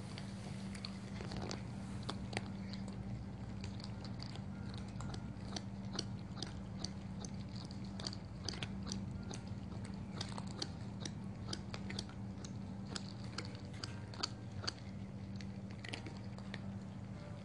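Cats crunching dry kibble: many short, crisp crunches at an irregular pace, over a steady low hum.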